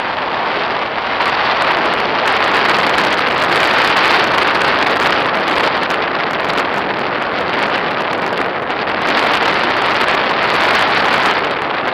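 Rushing airflow buffeting the microphone of a camera on a paraglider in flight: a loud, steady wind rush that swells a little about four seconds in and again near the end.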